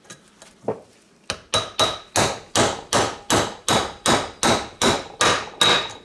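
Hammer blows on a bearing race installer, driving a new wheel bearing race into the hub of a cast disc brake rotor: one light tap, then a steady run of about fourteen metallic strikes, nearly three a second, with the rotor ringing.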